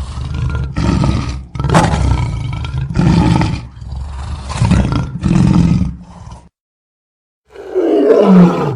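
African lion roaring: a run of about eight short, deep grunting roars, roughly one every 0.8 s, then after a brief gap a single roar that falls in pitch near the end.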